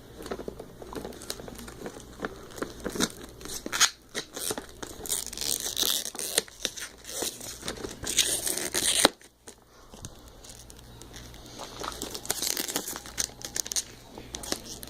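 Packaging being cut with a knife and torn open, with crinkling, rustling and small clicks as the package is worked free. A short quiet break comes about two-thirds of the way through, then the rustling resumes.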